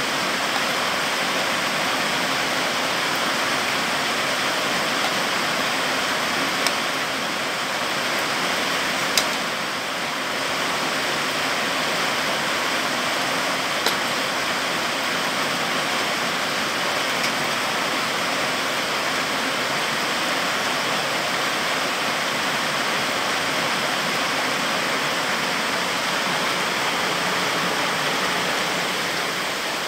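Heavy rain pouring steadily onto trees and dense foliage, a constant even hiss, with a few sharp ticks of single drops landing close by.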